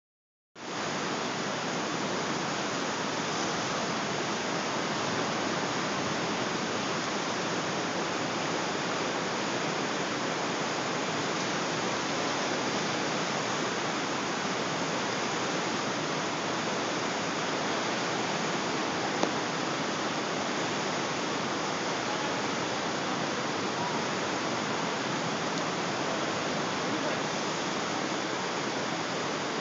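Floodwater of the Clark Fork River rushing below a bridge: a steady, even noise of fast-moving water, with one brief click about 19 seconds in.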